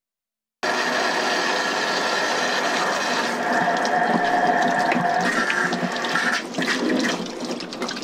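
Tap water running in a stainless steel sink, pouring over a plastic poultry waterer and splashing off it into the sink. It starts suddenly about half a second in and turns more broken and splashy near the end.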